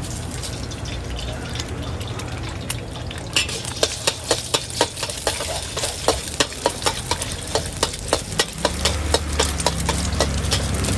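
Egg frying in hot oil in a carbon-steel wok, sizzling, while a metal spatula scrapes and clacks against the wok about three times a second as the egg is scrambled, starting a few seconds in. A low steady rumble runs underneath and grows louder near the end.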